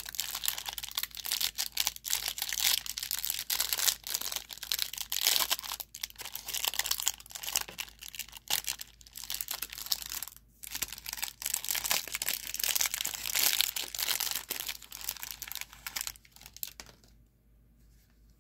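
Plastic wrapper of a baseball card pack crinkling and tearing as it is handled and opened, the crackling stopping about three-quarters of the way through.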